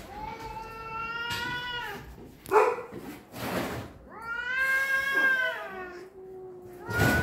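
Two domestic cats caterwauling at each other in a rooftop standoff before a fight: two long, drawn-out yowls, the second falling in pitch at its end, with short harsh noisy bursts between them and a third yowl starting near the end.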